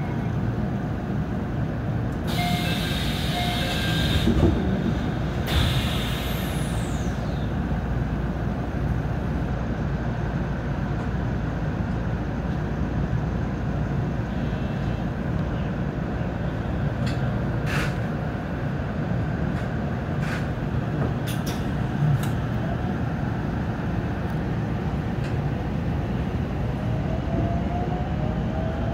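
JR 313 series electric train standing at a platform with a steady low rumble from its equipment, two bursts of air hiss a few seconds in, and a few sharp clicks midway. Near the end a rising whine from the traction motors sets in as it starts to pull away.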